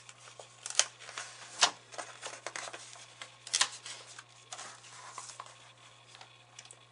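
Paper pages of a hardcover picture book being handled and turned: rustling and crackling with several sharp snaps of the page, over a faint steady hum.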